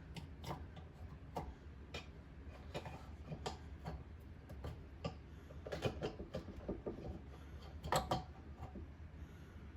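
Irregular light clicks and knocks of sink drain parts being handled and fitted, with a busier patch about six seconds in and the loudest pair of knocks about eight seconds in.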